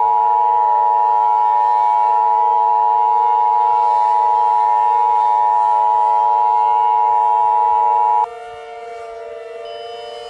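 Emergency Alert System attention tone: a loud steady tone held for about eight seconds that cuts off suddenly. Under it runs a quieter, slowly wavering siren-like tone, which carries on alone after the attention tone stops.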